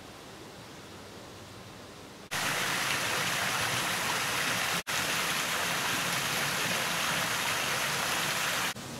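Water falling and splashing: a small cascade over mossy rock, then water gushing from carved stone spouts. It starts suddenly about two seconds in, breaks off for an instant near the middle and stops shortly before the end, after only faint outdoor hiss at the start.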